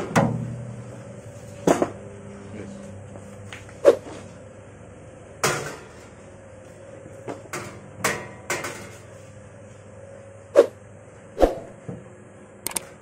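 Irregular metallic knocks and clanks, about ten over the stretch, from the stainless-steel tub of a bakpia filling mixer as it is tipped and the cooked mung bean paste is worked out, over a faint steady hum.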